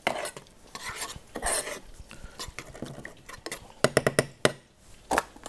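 A metal spoon stirring and scraping in a small saucepan of stock, shallots and bacon. About four seconds in comes a quick run of sharp clicks, metal on metal, with one more click near the end.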